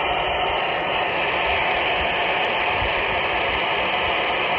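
Steady, loud static hiss from a handheld FM transceiver's speaker while it listens to the IO-86 amateur satellite downlink with no voice coming through.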